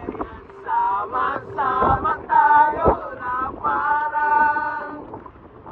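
A group of people singing together, with several long held notes in the second half.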